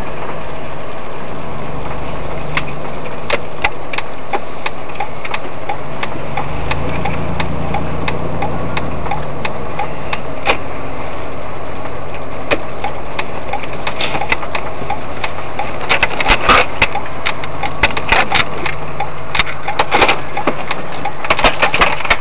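Car engine running at low speed, heard from inside the cabin, with a light regular ticking. In the last six seconds there are bursts of sharp clicks and knocks.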